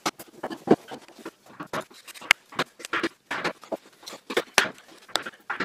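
Irregular sharp taps and knocks of hand-tool work on a pine board, a chisel being worked into a slot and struck with a hammer, with the louder knocks coming a few times a second at uneven intervals.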